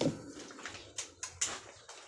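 A zebra dove's cooing fades out at the very start, followed by three or four sharp clicks or knocks between about one and one and a half seconds in.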